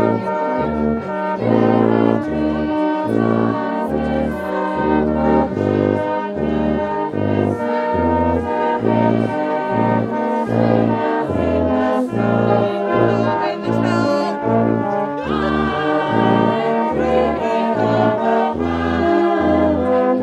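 Brass band playing a Christmas carol: sustained chords over a tuba bass line that moves from note to note.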